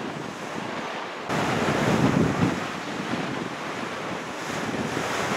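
Gusty wind buffeting the microphone ahead of an approaching severe thunderstorm; it jumps abruptly louder a little over a second in and stays strong.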